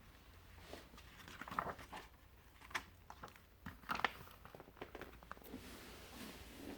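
Picture book being opened and its pages turned: a few soft paper rustles and light taps.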